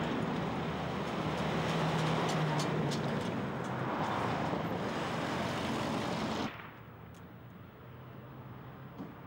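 City street traffic: buses driving past close by, with engine noise and a steady low hum. It cuts off suddenly about two-thirds of the way through, leaving a much quieter outdoor background.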